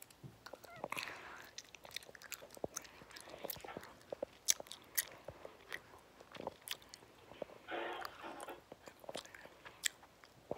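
Soft mouth clicks and smacking noises right at a phone's microphone, scattered irregularly, with a few short stretches of faint breathy hiss.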